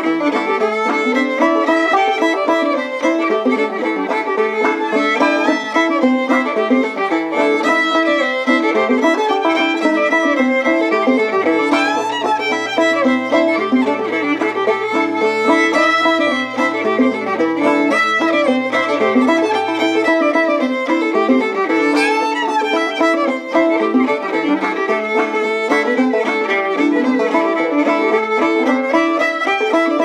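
Background music led by a fiddle, playing a lively tune of quick notes at a steady level.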